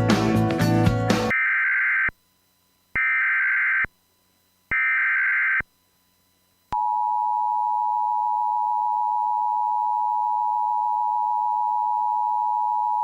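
Emergency Alert System tones: music cuts off about a second in, then three short bursts of the warbling SAME digital header tone, then the steady two-tone EAS attention signal (853 and 960 Hz) starts a little past halfway and holds.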